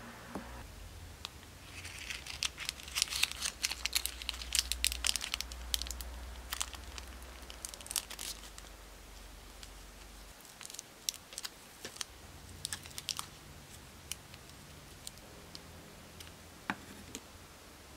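Thin plastic bag and clear plastic piping cone crinkling and crackling as brown paste is squeezed from one into the other, densest in the first half. Sparser crinkles and clicks follow, with a sharp snip of scissors cutting the cone's tip near the end.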